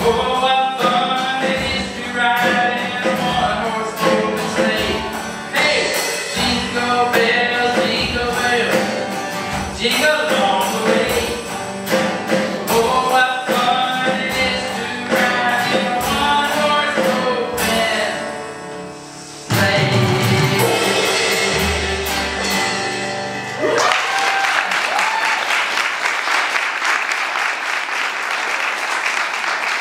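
A small live band plays: a man sings over acoustic guitar with a boy on an electronic drum kit. The song ends about twenty seconds in with a low held note, and the audience then applauds.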